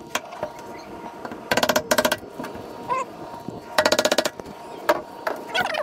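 A steel chisel scraping glued carpet off an aluminum boat panel, with two short bursts of rapid metallic clatter about two seconds apart and a few single knocks. The thin panel rings with each burst.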